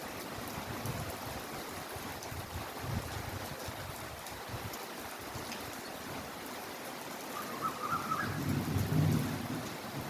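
Heavy rain falling steadily. A low rumble swells up near the end and is the loudest part.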